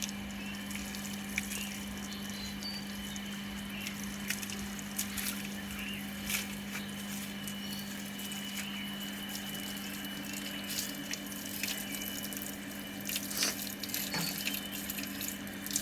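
Water splashing and dripping during a German Shepherd's bath, in scattered small splashes over a steady low hum.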